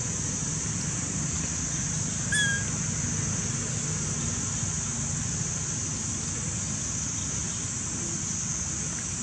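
Steady outdoor background of a constant high-pitched hiss over a low rumble, with one short high chirp about two and a half seconds in.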